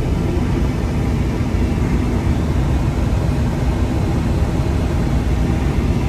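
Excavator's diesel engine running steadily, heard from inside the closed operator's cab.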